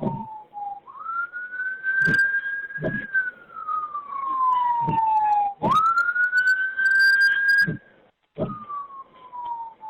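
Emergency-vehicle siren wailing, heard over a phone call. The tone sweeps up quickly, holds, then falls slowly, through two full cycles with a few short knocks on the line.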